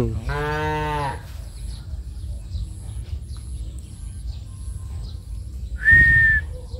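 A cow mooing once, a short steady low call under a second long. About six seconds in there is a short, loud, high-pitched whistle.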